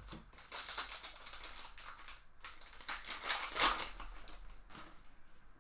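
Baseball trading cards and their pack wrapper being handled, a rapid papery crackle of cards flicking and wrapper crinkling. It starts about half a second in, eases briefly in the middle, is busiest again around three and a half seconds, and fades near the end.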